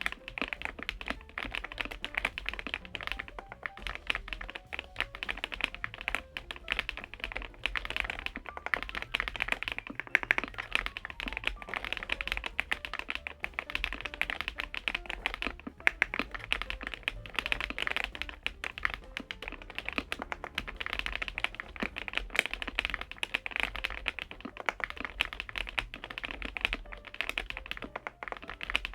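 Continuous fast typing on a Kzzi K98 mechanical keyboard with PBT keycaps: a dense, steady stream of key clicks and clacks.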